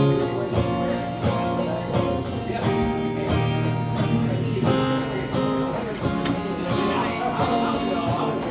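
Live country music with guitar, playing on without vocals: the instrumental ending of a song after the last sung line.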